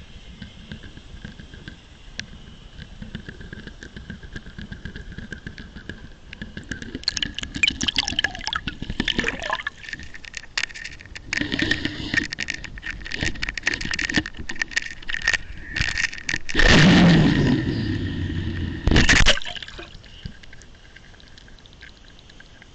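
Water gurgling and splashing against an underwater camera, with clicks and knocks. It grows busy after about seven seconds and is loudest in two surges near the end before settling down.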